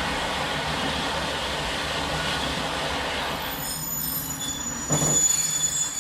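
Taiwan Railways ordinary passenger train running on the rails with a steady rumble; about three and a half seconds in, high-pitched wheel squeal sets in, with a short thump near the end.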